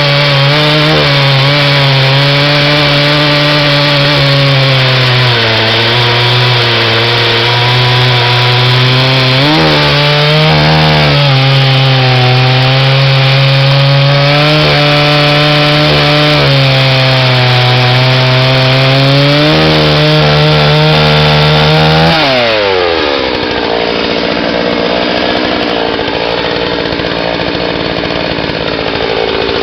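Freshly rebuilt two-stroke chainsaw, fitted with a new piston and rings, cutting through a log at high revs, its pitch sagging and picking up again as the bar loads. About three-quarters of the way through the throttle is let off and the engine drops quickly to a low idle.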